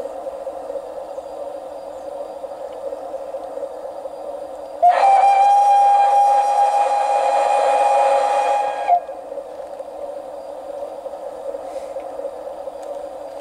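Digital sound decoder of a Saxon I K narrow-gauge steam locomotive model (Zimo MX699 with Mathias Henning's sound) sounding its steam whistle once: one steady, loud tone held for about four seconds, starting about five seconds in. Before and after the whistle there is a steady background hiss.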